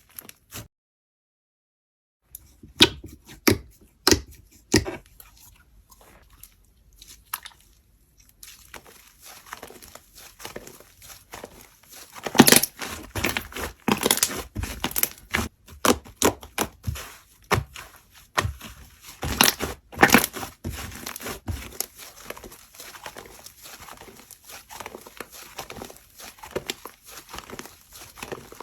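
Slime being squeezed and stretched by hand, giving scattered sharp pops at first and then a dense run of sticky crackles and pops, with louder bursts here and there. There is a brief break of dead silence just after the start.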